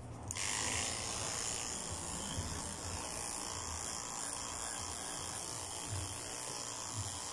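Corded electric pet clipper running steadily as it shaves a Maltese terrier's coat; the buzz starts just after the beginning.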